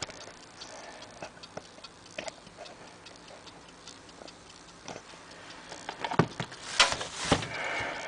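Small clicks and light knocks of metal padlocks and tools being handled and set down on a hard surface, with a cluster of louder knocks and a brief rustle about six to eight seconds in.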